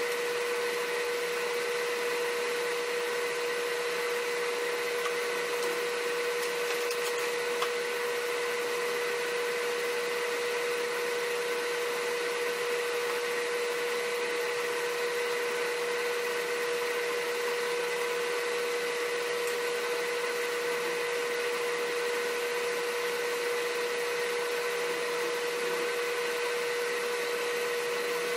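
Steady motor hum with one constant mid-pitched whine, unchanging throughout.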